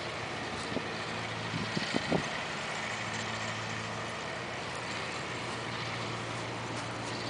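Steady low hum of a running engine, with a few faint soft knocks about two seconds in.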